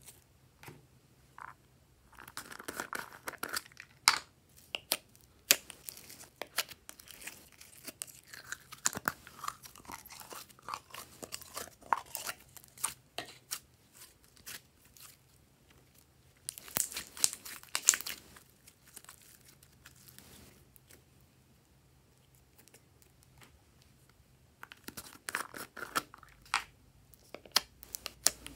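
Hands squeezing and kneading glossy slime: rapid sticky clicks and pops in bouts, with a quieter spell near the end before it picks up again.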